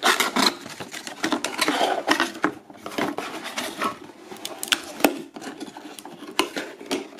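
Cardboard carton being pulled out and its flaps bent open by hand: cardboard scraping and rubbing, with irregular knocks and clicks.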